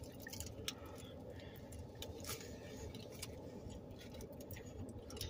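Quiet eating sounds: a few faint, scattered clicks and crinkles from a metal fork and foil-wrapped burritos, over a low steady hum.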